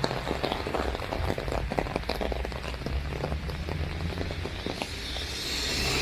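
Rain drumming on an umbrella overhead: many close, sharp drop hits over a steady hiss of rain. Near the end the hiss of a vehicle's tyres on the wet road begins to swell as it approaches.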